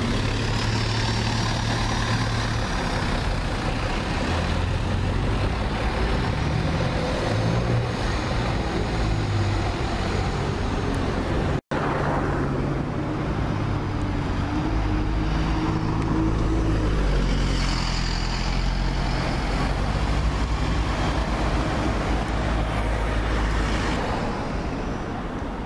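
Diesel bus engines and street traffic: an Optare Solo midibus runs past as it turns, then after a sudden cut an Alexander Dennis Enviro200 single-decker approaches, its engine note rising.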